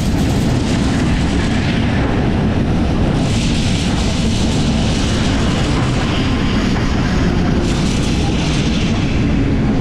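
Steady low wind rumble over a roof-mounted camera on a moving tram, mixed with the tram's running noise along the track. A higher hiss swells for about a second twice, a few seconds in and near the end.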